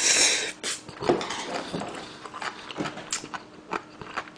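The end of a loud slurp of a mouthful of instant black-bean (jjajang) noodles, cutting off about half a second in, followed by close-up wet chewing with small smacking clicks.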